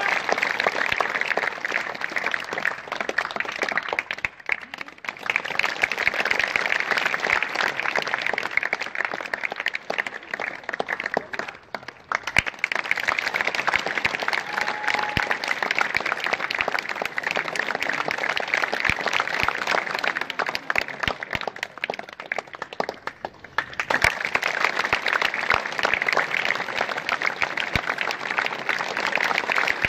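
A crowd of schoolchildren clapping and applauding on cue, dying down briefly three times and then picking up again each time.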